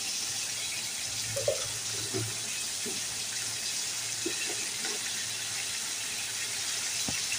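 Steady sizzling hiss of chicken pieces cooking in oil and a little water in a wok, with a light click near the end.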